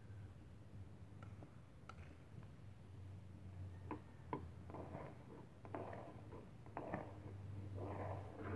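A spoon stirring in a cooking pot of rice porridge, with a few light knocks against the pot, then several short scraping strokes in the second half.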